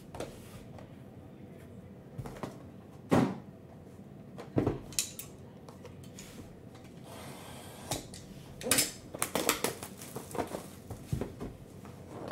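Hands handling a cardboard trading-card hobby box and a clear plastic card case: scattered knocks and taps as they are set down and moved, the loudest about three seconds in, a soft sliding rub of cardboard a little past halfway, then a quick run of taps and clicks near the end.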